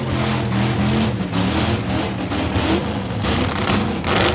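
Demolition derby car engines running and revving, pitch rising and falling, over a loud rough noise.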